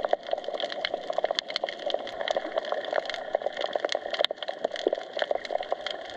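Underwater seabed sound: a steady water hiss with dense, irregular crackling clicks all through.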